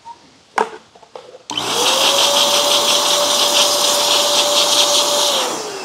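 Small plug-in electric blower switched on about a second and a half in. Its motor whine rises quickly to a steady pitch over a loud rush of air as it blows dust out of a pleated vacuum filter. Near the end it is switched off and winds down with falling pitch; a single knock comes shortly before it starts.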